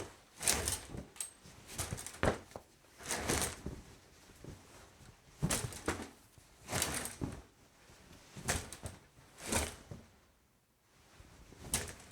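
Shower curtain pulled along its rod and a towel rubbed against the body, heard as a series of short rustling swishes a second or two apart, with one sharper knock just after two seconds.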